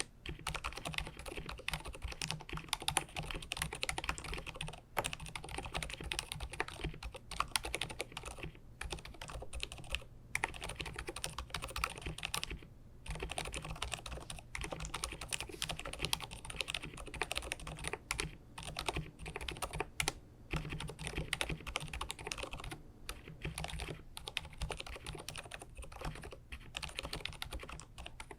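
Steady, fast typing on an mStone Groove T Purpler mechanical keyboard with silent 45g Milky switches, hand-lubricated and damped inside with silicone and felt layers, giving soft, muted keystrokes. The typing stops for a moment a few times.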